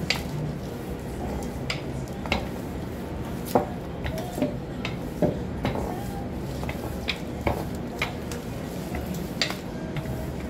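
Kitchen clatter: scattered sharp clinks and knocks, roughly one a second and some briefly ringing, over a steady background noise.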